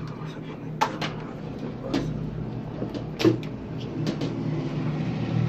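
Three sharp plastic clacks about a second apart, with a few fainter ticks, from hands handling the opened casing and parts of an HP Smart Tank 500 inkjet printer. A steady low hum runs under them.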